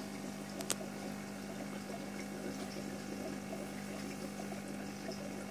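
Aquarium sponge filter bubbling steadily over a low, steady hum, with one sharp click just under a second in.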